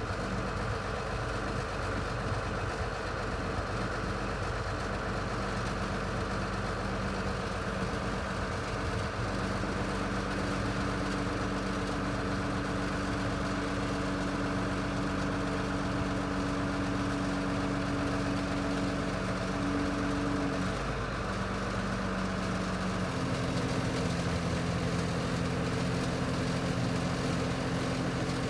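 Cummins C8.3 six-cylinder diesel of a Volvo EC240LC excavator running steadily, its note changing about twenty seconds in.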